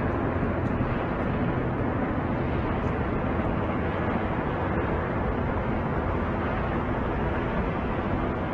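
Steady outdoor rumble and hiss with a low hum running through it, never pausing.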